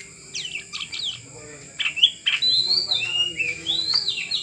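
Oriental magpie-robin (kacer) singing: varied whistled phrases that slide up and down, mixed with a few sharp clicking notes. It is sparse at first and becomes fuller and louder about two seconds in.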